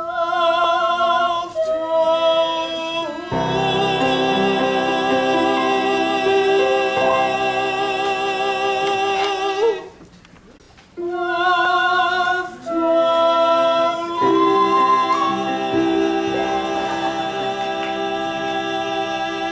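A young man and a young woman singing in rehearsal, holding notes with vibrato, with more than one voice at once for stretches and a short pause about ten seconds in.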